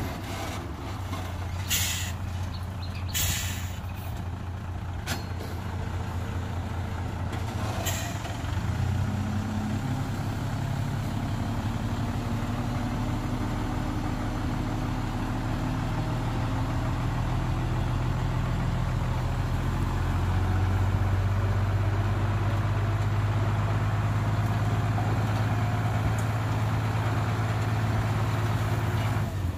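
Diesel dump truck engine running steadily, with several short hisses of air in the first eight seconds, as from the air brakes. The engine gets a little louder about two-thirds of the way through.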